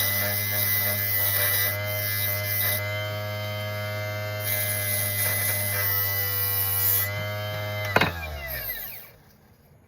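Electric RC tire truer's motor running steadily, spinning a foam tire while a sanding bar scrubs old sidewall glue off it with a hiss that comes and goes. About 8 seconds in it is switched off with a click, and its pitch falls as it spins down to a stop.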